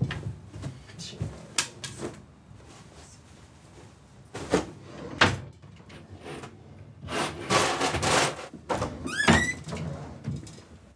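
Wooden dresser drawers being pulled open, rummaged through and pushed shut: a run of knocks and clicks, with rustling of the things inside. Near the end a door hinge gives a short rising creak.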